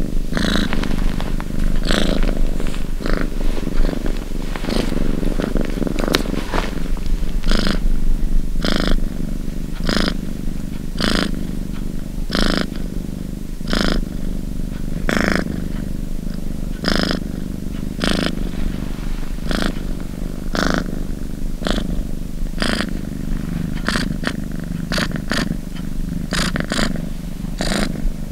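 Domestic cat purring: a steady low rumble with a brighter pulse about once a second, the pulses coming faster near the end.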